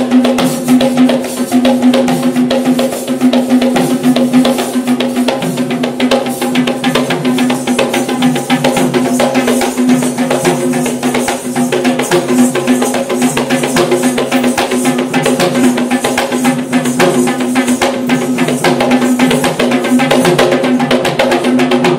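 Geta bera, the double-headed Kandyan drums, beaten by hand in a fast, unbroken rhythm. A sustained pitched note is held under the drumming throughout.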